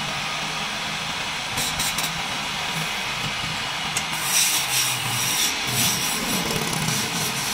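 Wood lathe running with a steady hum while a hand-held turning tool cuts into the spinning wooden chair leg. The cutting comes as scraping, rasping passes that are heaviest in the second half.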